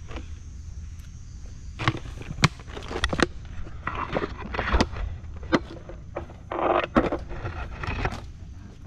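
Footsteps crunching over dry leaves and twigs on a mangrove forest floor, with scattered sharp snaps and cracks and brief rustles as a walker pushes through the roots.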